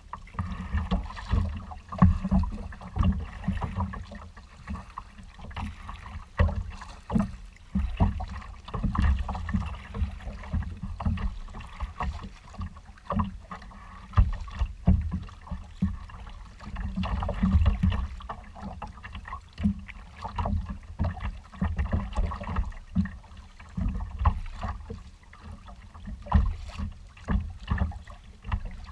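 Choppy water slapping and splashing against a kayak's hull under way, in irregular surges, with wind buffeting the deck-mounted camera's microphone.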